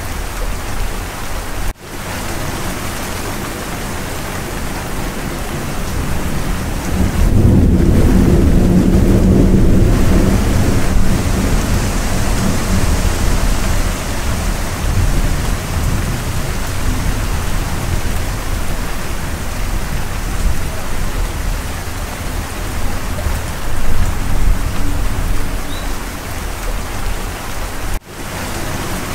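Steady, heavy rain hiss with a low rumble of thunder swelling about seven seconds in and fading over a few seconds. The sound cuts out for an instant twice, near the start and near the end.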